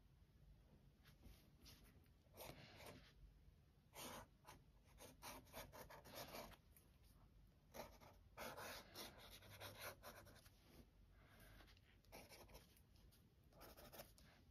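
Lamy Safari fountain pen nib scratching faintly across sketchbook paper in many short, irregular drawing strokes.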